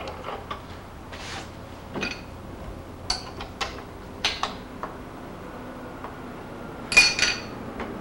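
Metal tools and tooling clinking and clanking on a milling machine while the setup is changed over from the cutter to a drill bit: scattered sharp clinks, with the loudest, ringing cluster about seven seconds in.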